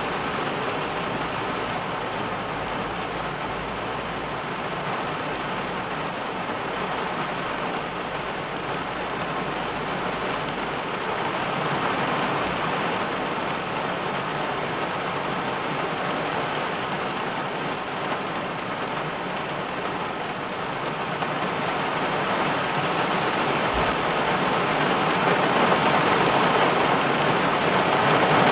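Heavy rain falling on a car's roof and windshield, heard from inside the car as a dense, steady hiss of drops. It grows louder over the last several seconds as the downpour gets heavier.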